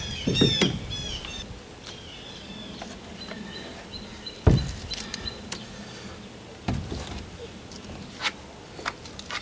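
Handling sounds of scooping and spreading thickened epoxy with a putty knife inside a fiberglass boat hull. One sharp knock comes about four and a half seconds in, with a few lighter clicks later. Birds chirp briefly near the start.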